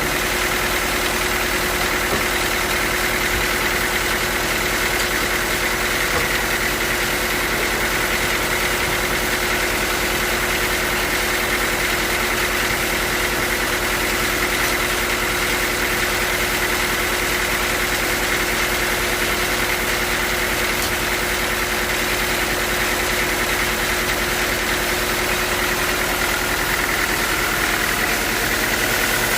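Sawmill machinery running steadily: an even mechanical drone with a few fixed tones that hold unchanged throughout.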